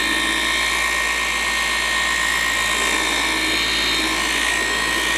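Handheld machine polisher running steadily at speed with a high, even whine, its pad working compound into car paint until the polish is refined back.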